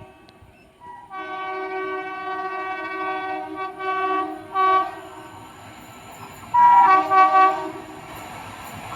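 Train horn sounding twice: a long blast with several tones together that swells and fades, then a shorter, louder blast about six and a half seconds in.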